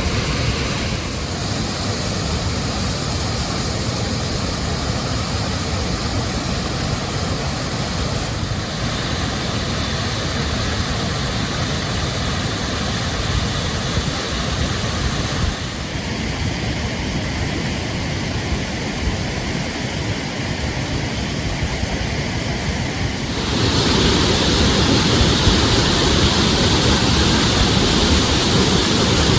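Wind and road noise on a camera riding with a moving motorcycle, a steady rushing noise with no clear engine note. It gets louder and hissier about three-quarters of the way through.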